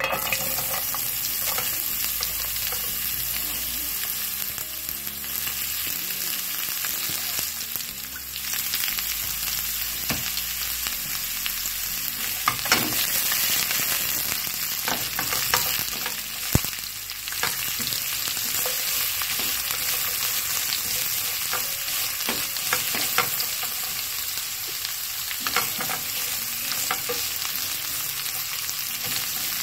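Sliced carrots, onion rings, sweet peppers and scotch bonnet peppers sizzling steadily in hot oil in a non-stick frying pan, starting the moment they hit the oil. A few sharp clicks and knocks come as the vegetables are stirred and tossed. This is the quick fry that draws out their flavour for the pickle.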